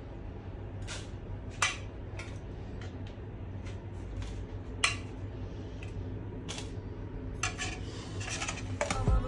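Metal spoon clinking and scraping against the inside of a tin can while scooping out dry rolled oats: a scattering of separate clinks every second or so, over a steady low hum.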